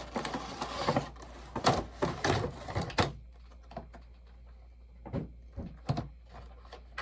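Bobblehead packaging being handled: rubbing and scraping with sharp knocks for about three seconds, then a few scattered clicks and knocks.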